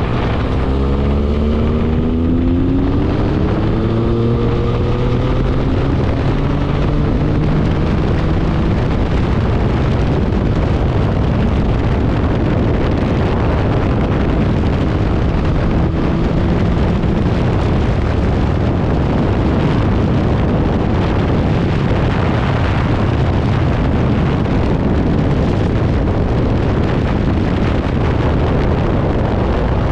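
Motorcycle engine accelerating, its pitch climbing over the first several seconds, then a steady rush of wind on the microphone at road speed, with the engine running underneath.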